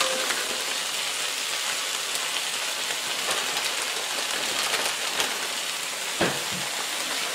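Chicken strips and queso cheese sizzling steadily in a frying pan on low heat, with one brief tap about six seconds in.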